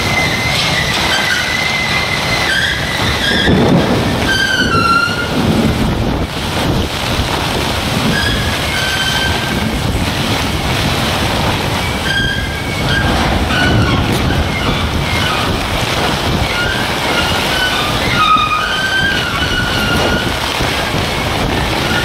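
Steady rush of storm wind and heavy rain, with short, wavering high metallic squeals coming and going from the steel gantry cranes as the wind pushes on them.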